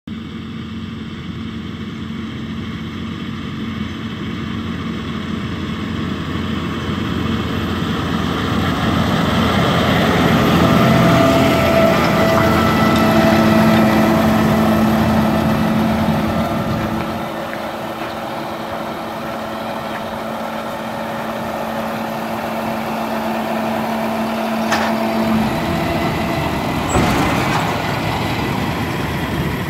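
Tractor engine running steadily under load while driving a McHale F5500 fixed-chamber round baler picking up and baling grass. It grows louder as the rig passes close by. Near the end there is a sharp click and then a knock as the baler's tailgate opens and a finished round bale drops out.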